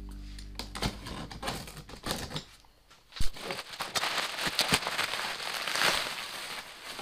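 A cardboard shipping box being opened, with scattered clicks and scrapes, then one sharp knock about three seconds in. After that comes a long stretch of plastic bubble wrap crinkling and rustling as it is lifted out of the box.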